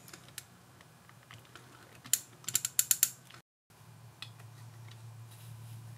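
Small metallic clicks and ticks of a nut driver turning a speaker binding post's nut tight, with a quick run of sharper clicks about two seconds in. The sound cuts out briefly just past the middle.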